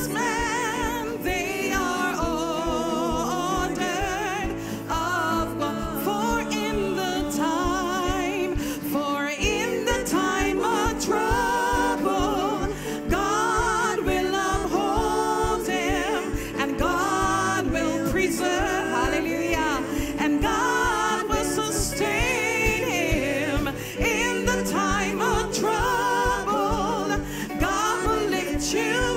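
Church worship team performing gospel music: singers with wavering vibrato over a band with held bass notes and a steady beat.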